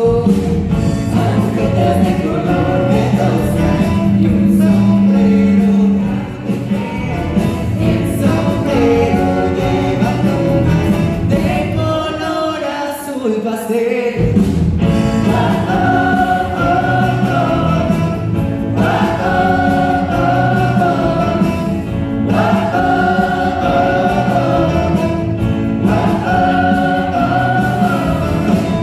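A live band playing with the cast singing together in chorus. The bass drops out for a moment about halfway through, then the voices come back in held, repeated phrases over the full band.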